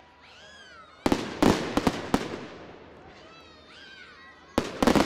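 Fireworks exploding: a quick cluster of sharp bangs about a second in, each trailing off, then a second cluster near the end.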